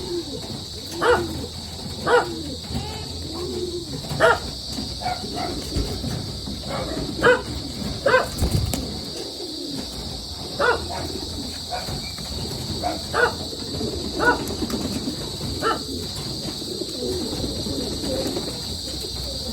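Pigeons cooing, with short, sharp pitched calls at irregular intervals of one to three seconds over a steady high-pitched buzz.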